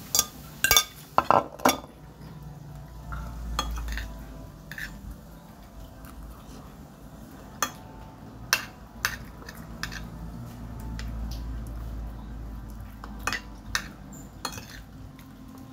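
A metal spoon and glass dishes clinking while someone eats from a glass plate: a quick run of clinks in the first two seconds, then single clinks and scrapes every second or few seconds.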